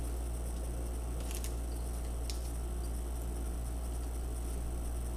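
Steady low electrical hum, with a few faint small clicks about one and a half and two seconds in from handling the laptop's display cable connector.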